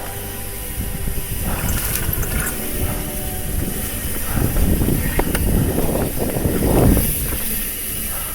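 Trek Fuel EX full-suspension mountain bike rolling over a dirt trail: tyre rumble and frame and drivetrain rattle that grow louder and rougher through the middle, with a couple of sharp clicks.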